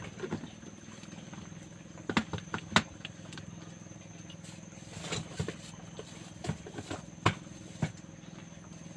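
Scattered sharp knocks and clatters of things being handled in a wooden boat, loudest about two and three seconds in, over a steady low hum from a portable gas stove burner heating a kettle.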